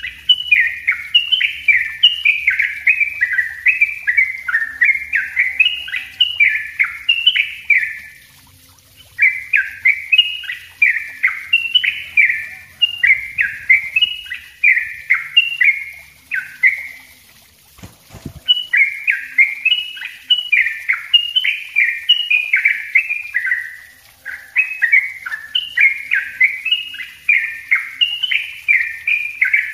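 Yellow-vented bulbul (trucuk) singing its dense, rapid 'ropel' song: long runs of quick, bubbly chirped notes, broken by three short pauses. A brief low thump falls in the pause about two-thirds through.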